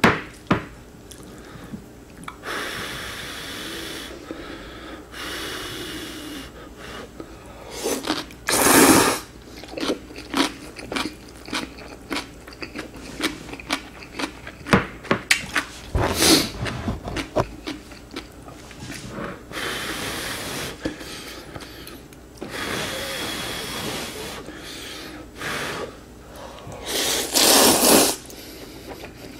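Close-miked mukbang eating: spicy ramen noodles slurped in several drawn-out pulls, between bursts of crisp crunchy chewing of cubed radish kimchi (kkakdugi).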